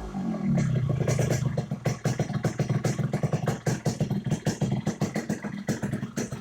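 Yamaha RX-King two-stroke single-cylinder motorcycle engine dropping back from a rev in the first half-second, then idling raspy and uneven with a dense crackle from the exhaust.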